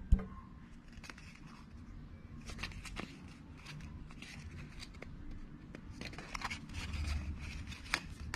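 Light handling noise: scattered soft clicks and rustling as a phone charger brick and its coiled USB-C cable are picked up and turned over in the hands.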